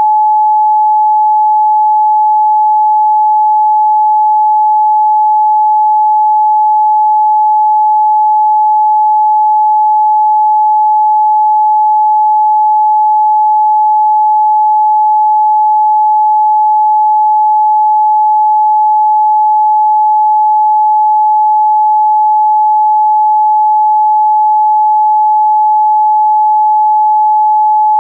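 A steady, loud, pure 855 Hz sine-wave test tone, one unwavering pitch with no overtones.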